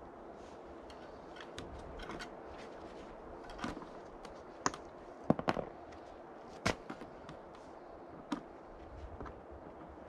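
Cutters snipping the tie wires on a coiled, tensioned sawmill band blade: a handful of sharp metallic clicks and snaps, the loudest about five seconds in.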